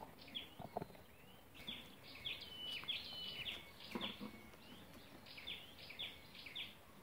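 Small birds chirping in a steady run of short, high calls, some holding a note and then dropping sharply, with a couple of faint thumps.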